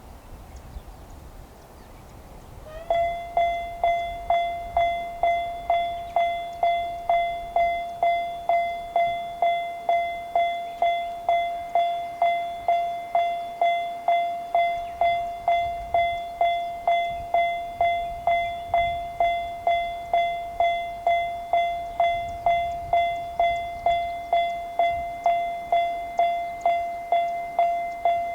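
Japanese railroad crossing warning bell (the "kan-kan" alarm) starting suddenly about three seconds in, then ringing a single repeated metallic tone at an even pace of roughly two strikes a second, signalling that a train is approaching.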